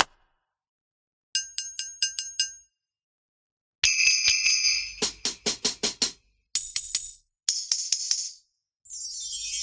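Sampled percussion from the EZdrummer 3 Claustrophobic EZX library played in short separate phrases: quick runs of ringing metallic hits and tambourine jingles, with pauses between them. A swelling hiss begins near the end.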